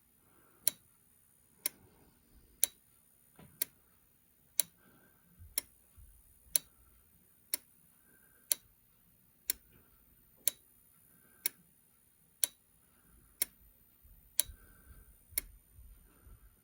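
Sharp clicks, about one a second, as a Williams Cyclone pinball MPU on a bench test rig steps through its coil (solenoid) test, one output after another.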